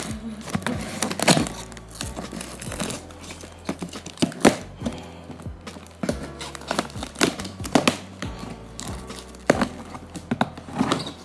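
Background music over the knocks, scrapes and crinkling of a cardboard shipping box being opened and its packing handled.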